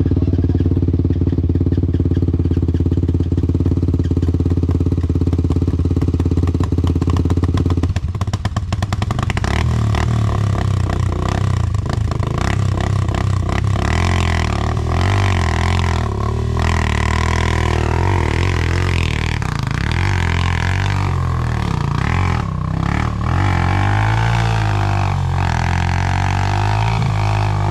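Dirt bike engines running: a steady idle for about the first eight seconds, then uneven revving that rises and falls as bikes work their way up the rocks.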